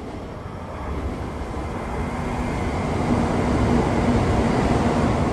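An N700-series Shinkansen bullet train running into the platform, its rumble and rush of air growing steadily louder as the cars come alongside. A low steady hum from the train joins about halfway through.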